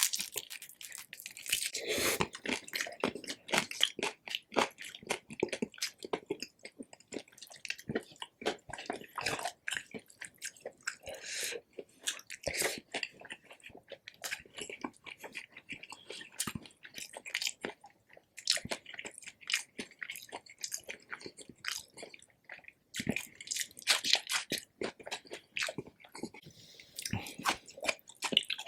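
Close-miked chewing of crispy pork belly (lechon), with crackly crunches from the crackling skin and wet mouth sounds.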